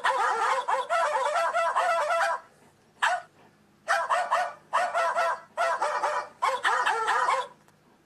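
Phone ringtone playing a warbling, yip-like tone: one long stretch at the start, a short blip, then four even bursts of just under a second each, cutting off near the end.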